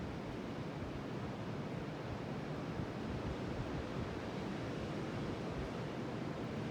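Pacific Ocean surf washing in a steady, even rush with no distinct single wave breaks.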